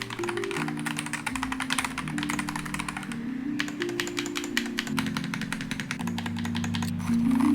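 Fast typing on a VGN A75 magnetic-switch keyboard, a dense run of keystrokes with a brief let-up about three seconds in, fading out near the end. Background music with a slow melody plays underneath.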